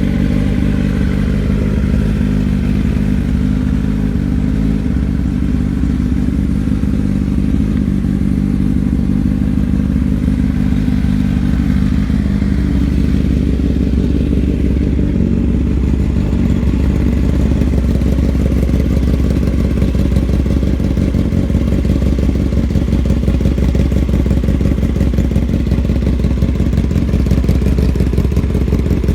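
2021 Kawasaki ZX-10R's inline-four running through an M4 aftermarket exhaust, idling steadily with no revs; its tone shifts lower about a dozen seconds in.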